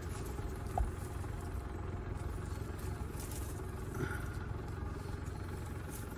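Steady low rumble under faint rustling of dry leaf litter as hedgehog mushrooms are picked from the forest floor, with one small knock about a second in.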